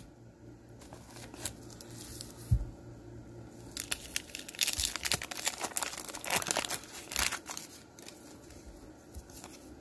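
Paper wrapper of a hockey card pack being torn open and crinkled by hand. The crinkling is thickest from about four to seven and a half seconds in, then eases off as the cards come out.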